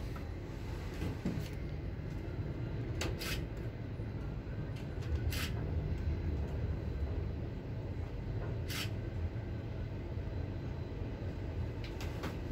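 Steady low rumble inside an enclosed cable-car gondola riding along its rope, with three short high hissing sounds about three, five and a half, and nine seconds in.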